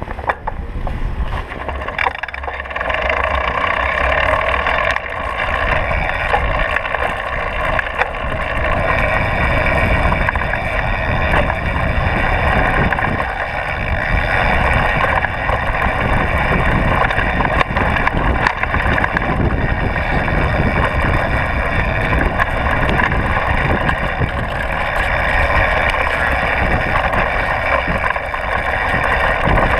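Downhill mountain bike rolling fast down a rough dirt trail: a steady rush of wind on the camera microphone over the rumble of the tyres, with scattered clicks and knocks from the bike on the rough ground. It grows louder about two and a half seconds in as the bike gets under way.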